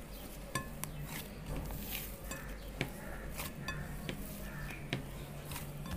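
Hand kneading soft yeast dough in a bowl for donuts: irregular light knocks and clicks of hand and dough against the bowl, over soft handling noise.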